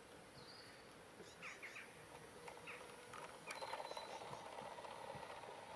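Small birds chirping in short repeated calls. From about halfway through, a garden-railway model train's motor and wheels run on the track with a steady hum, growing a little louder as it comes closer.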